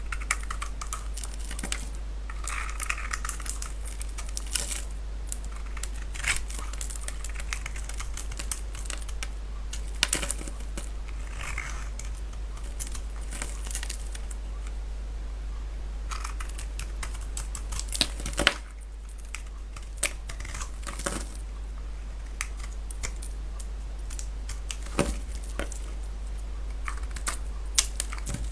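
A knife cutting into dry bar soap, making crisp, irregular crunching and clicking sounds, with a steady low hum underneath.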